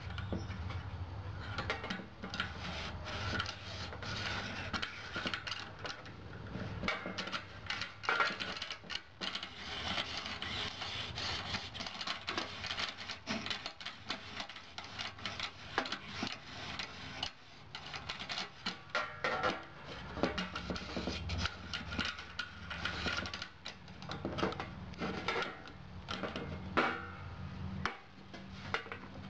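Whetstone on a RUIXIN PRO guided knife sharpener scraping along a clamped knife blade in repeated strokes, with light clicks and knocks from the stone's holder sliding on its guide rod.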